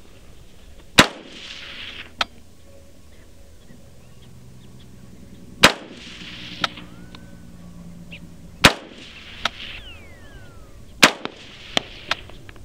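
Four rifle shots, a few seconds apart, each with a short echo. Each is followed about a second later by a fainter, sharper crack.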